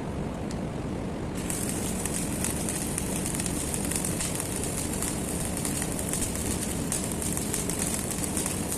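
Arc welding crackling steadily, starting about a second and a half in, over a steady engine drone.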